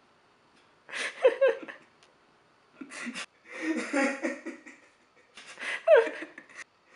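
Young men laughing and giggling in several short bursts.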